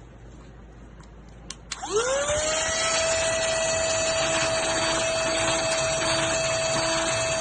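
Cordless handheld vacuum cleaner switched on with two clicks about a second and a half in. Its motor whines up in pitch over about half a second, then runs steadily with a high whine and a strong airflow hiss.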